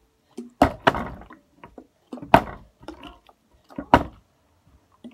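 A capped, partly filled plastic water bottle thudding down on a wooden table in bottle-flip attempts: four sharp knocks, two in quick succession just under a second in, then one about every second and a half.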